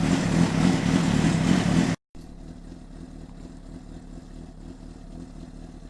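Honda CBR600RR inline-four motorcycle engine running steadily. About two seconds in the sound cuts off abruptly, followed by a much quieter, steady engine hum.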